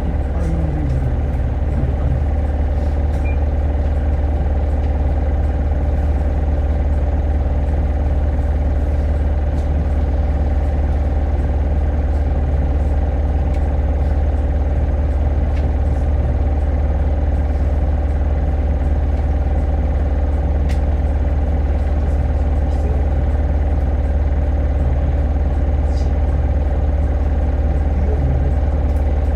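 Hino Blue Ribbon hybrid city bus (2SG-HL2ANBP) heard from inside the cabin, its diesel engine running at a steady low speed with a constant low hum. Now and then a faint click or rattle comes from the interior.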